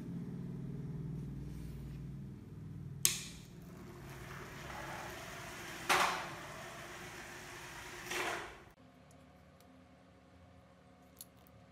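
A small homemade toy car's motor running with a steady low buzz as the car travels across a hard tiled floor. Three sharp knocks come about three, six and eight seconds in. The sound then drops off suddenly to a much quieter background with a few faint clicks.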